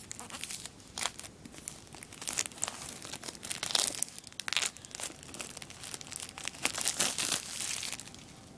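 Clear plastic shrink-wrap being torn and peeled off a phone box and crumpled in the hands: irregular crinkling and crackling, loudest around the middle and again near the end, stopping shortly before the end.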